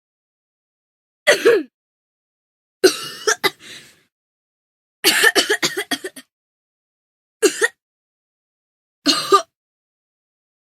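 Human coughing: five separate bursts with dead silence between them, the middle one a quick run of several coughs.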